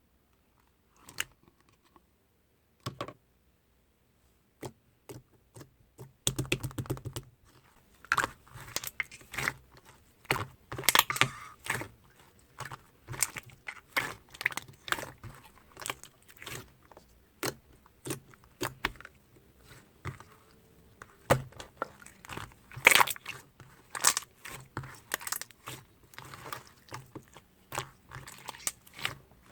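Slime being pressed and squished by hand, giving sharp little clicks and crackling pops: a few scattered ones at first, then in quick, irregular succession from about six seconds in.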